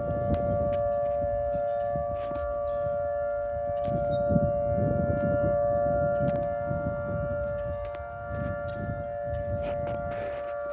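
Outdoor tornado warning siren sounding a steady held wail of two pitches together, its loudness slowly swelling and fading. A low rumbling noise runs underneath.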